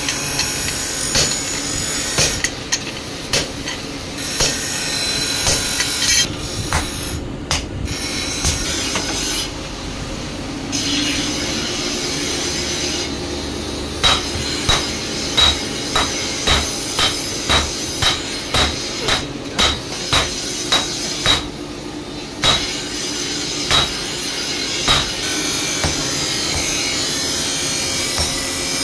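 Hammer blows on red-hot steel on an anvil as a bolo blade is forged: sharp metal-on-metal strikes, scattered at first, then a steady run of about two blows a second through the middle, over a steady background noise.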